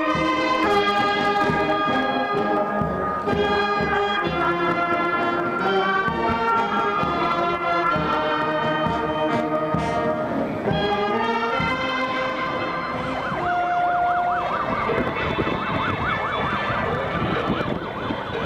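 Brass band music playing, which gives way about two thirds of the way through to several sirens of a police motorcycle escort rising and falling quickly in pitch over crowd noise.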